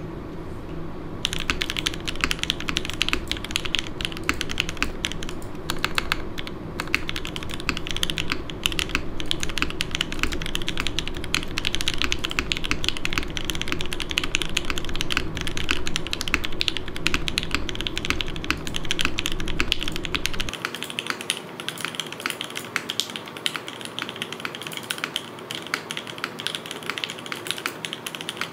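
Continuous fast typing on a Hineybush Ibis custom mechanical keyboard with lubed FFF switches, an aluminium plate, no foam and GMK keycaps: a dense stream of keystroke clacks that starts about a second in.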